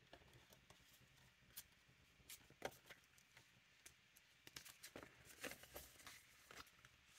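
Near silence, with faint scattered taps and rustles of paper banknotes and a clear plastic zippered binder pouch being handled; the small clicks come more often in the second half.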